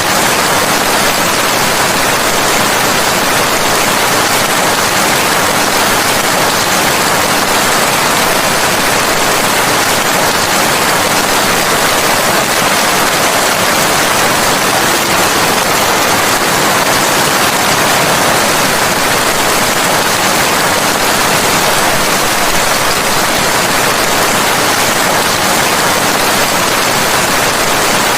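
Steady heavy rain, an even, unbroken hiss with no distinct drops or thunder standing out.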